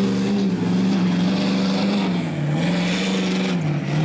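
Ford Super Duty pickup's turbo-diesel V8 running hard at high revs under load, pulling a weight-transfer sled. The engine note holds steady but sags briefly twice, about halfway through and just before the end, and recovers each time.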